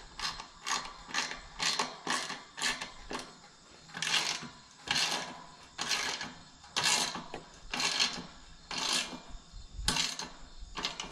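Gate hinge hardware being tightened in short, repeated metallic ratcheting strokes, about two a second at first, then slower and longer, about one a second.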